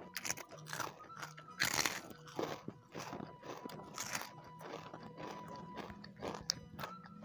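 Close-miked eating: a person chewing a mouthful of food with irregular crisp crunches, loudest about two seconds in.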